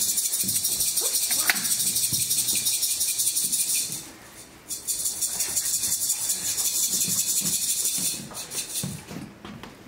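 A loud high hissing rattle, like a fast-shaken shaker. It breaks off about four seconds in, starts again, and fades out near the end, with faint knocks beneath it.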